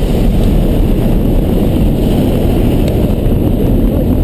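Steady loud rumble of a jump plane's engine mixed with rushing air, heard from inside the cabin at the open door.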